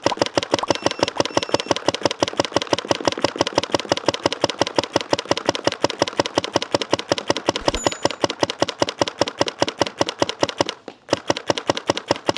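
GOG eNMEy mechanical paintball marker on a compressed-air tank, fired as fast as the trigger can be pulled: a rapid, even string of sharp shots. The firing breaks off briefly about eleven seconds in, then starts again.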